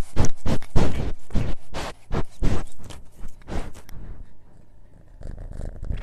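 A run of loud, irregular knocks and scrapes right on a mini handheld microphone as a cat sniffs and noses at it. The knocks thin out and grow softer after about four seconds.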